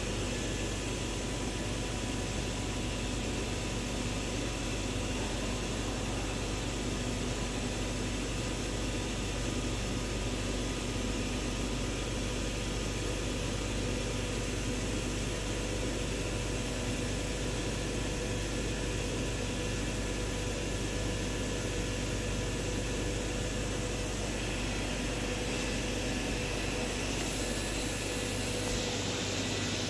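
Steady machine hiss and hum of a running 6000 W fiber laser cutting machine, with a few faint steady tones in it. The lowest part of the hum drops away just before the end.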